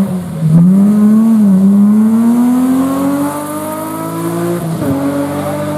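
Rally car engine accelerating hard, its pitch climbing steadily; it dips briefly about half a second in and drops again near the end with an upshift.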